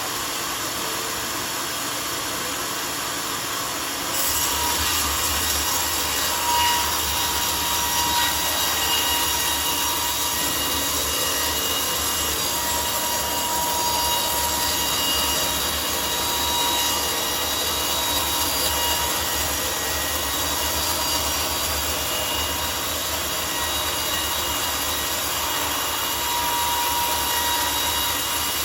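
Homemade sawmill running and sawing a mahogany log. About four seconds in the sound gets louder, with a low hum and a thin steady whine, and carries on steadily as the blade cuts through the wood.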